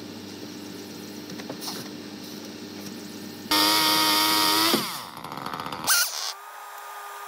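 A gas chainsaw runs at full throttle for just over a second while cutting wood, then the engine winds down. A brief sharp noise with a quick rising squeal follows about six seconds in.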